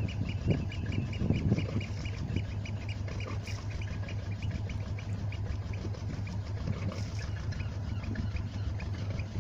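Volvo Penta MD7A two-cylinder marine diesel running steadily: a constant low hum with a fast, even clatter.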